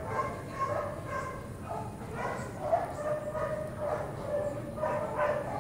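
Dogs whining and yipping, a string of drawn-out, high cries that overlap one another.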